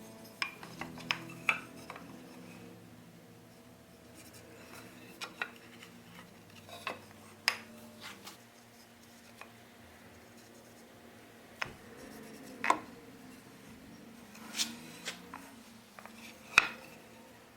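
Scattered light clinks and taps of hand tools and wooden frame pieces being handled on a workbench, some with a brief metallic ring. The tail of background music fades out in the first couple of seconds.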